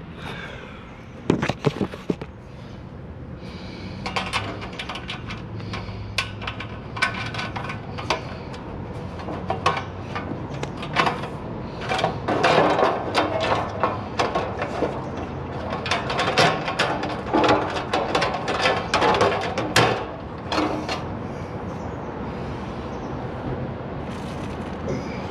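Irregular knocks, clicks and clatter of raised-bed kit parts being handled and fitted together. The clatter is busiest through the middle and eases off near the end.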